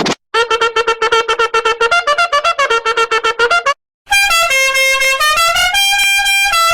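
Two meme sound-effect clips in a row. The first is a fast run of short staccato notes, about ten a second, mostly on one pitch with a few steps. After a brief break comes a bright, horn-like tune of held notes stepping up and down in pitch.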